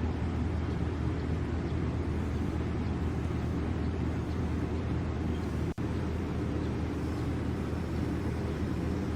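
Steady low rumbling background noise with no distinct events, broken by a momentary dropout about six seconds in.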